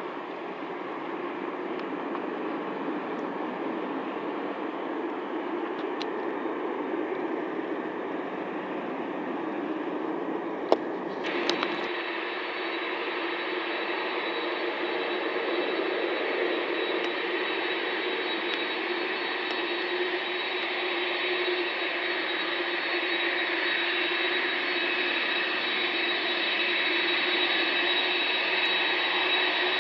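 Distant jet airliner taking off, a steady, even engine noise. About eleven seconds in, two sharp clicks, then a Boeing 747-400 freighter's four jet engines running at low power on the ground: a steady whine with a thin high tone, growing slowly louder as it comes closer.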